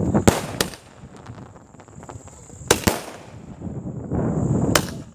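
Firecrackers bursting with sharp bangs: a quick run of cracks at the start, two more a little under three seconds in, and another near the end, with rumbling noise between them.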